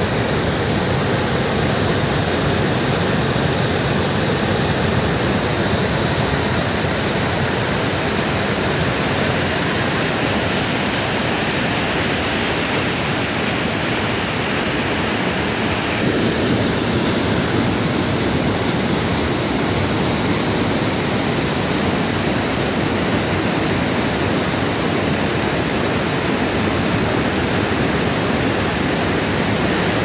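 Waterfall: water rushing steadily over rock ledges, a loud, even noise with no break. Its hiss grows brighter about five seconds in and duller again around sixteen seconds.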